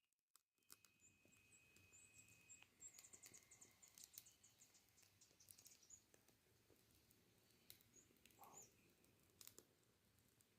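Near silence with faint, high-pitched bird chirps, including a quick trill about three seconds in, and a few faint clicks.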